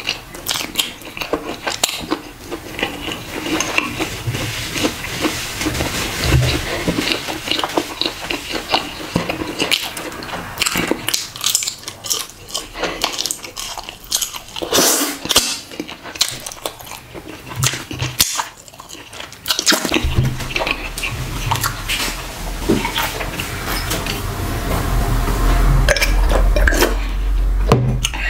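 Close-miked eating sounds: chewing, biting and wet lip-smacking as a piece of food from ogbono soup is eaten by hand and the fingers are sucked clean. A steady low hum comes in about two-thirds of the way through.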